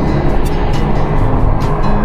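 Background music with held notes and percussion hits.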